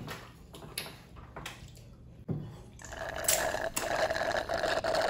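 Wet, sticky eating sounds of okra soup and amala being scooped and slurped. Soft clicks come first, then a thump a little past two seconds in, and from about three seconds in a louder, steady, wet sound.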